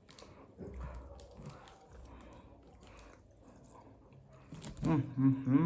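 Faint chewing and biting sounds of someone eating tandoori chicken, soft mouth noises and small clicks. A pitched voice-like sound comes in near the end.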